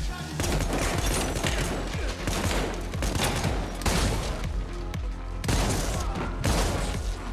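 Shotgun firing Dragon's Breath incendiary rounds: a string of loud blasts, about one or two a second, over an electronic film score with a steady low beat.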